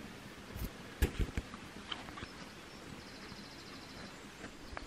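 Quiet outdoor ambience with a few sharp knocks and rustles of the camera being handled about a second in, and a faint, rapid high trill, like a small bird's, about three seconds in.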